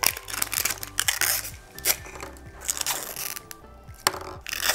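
Printed plastic wrap of a 5 Surprise Unicorn Squad capsule crinkling and tearing as it is peeled off by hand, in bursts near the start and again near the end, over background music.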